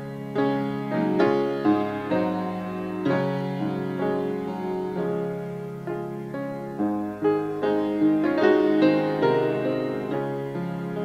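Slow, gentle piano music: sustained chords with soft notes entering every half second or so.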